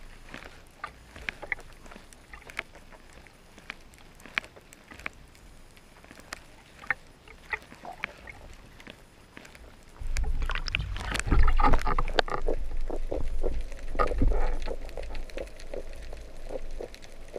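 Water sounds picked up by a speargun-mounted camera at and under the sea surface: scattered sharp clicks, then about ten seconds in a loud rushing, bubbling wash with a low rumble and rapid crackling as the gun moves through the water.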